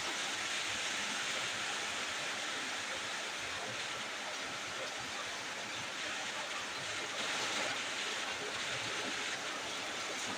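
Steady sizzling of food frying in a pan.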